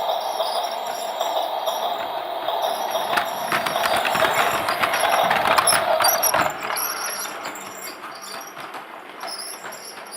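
Toy train running: a steady motor whine with clicking and rattling, growing louder to a peak about six seconds in, then quickly fading as it moves away.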